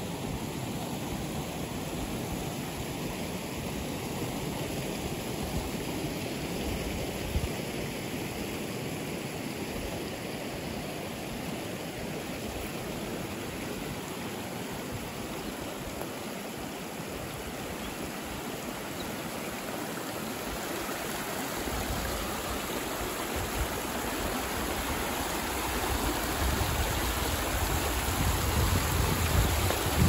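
Rushing river water, a steady even rush. A low rumble builds over the last several seconds.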